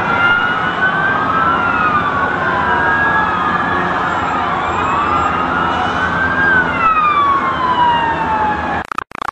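Several emergency vehicle sirens wailing at once, their pitches rising and falling over one another above steady street noise. Near the end the sound breaks up, cutting in and out rapidly.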